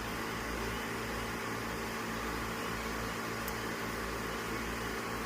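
A steady mechanical hum with a low drone, holding the same pitch and level throughout.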